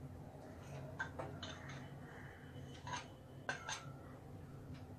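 A few faint, scattered clinks of a utensil against a bowl as dosa batter is added to it, over a low steady hum.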